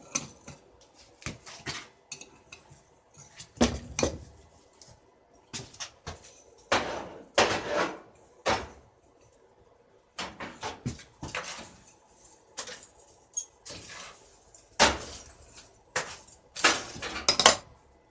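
Irregular metallic clinks and knocks, with a few short scraping strokes, from hand work on a forged knife.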